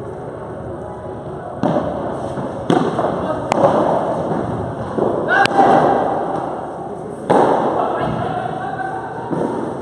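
Padel rally: the ball struck by rackets and hitting the court walls, about six sharp hits a second or so apart, each echoing through the large hall.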